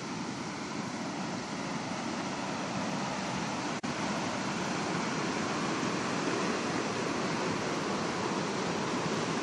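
Brown floodwater rushing and pouring over a concrete edge in a steady, loud roar of water, with a momentary break about four seconds in.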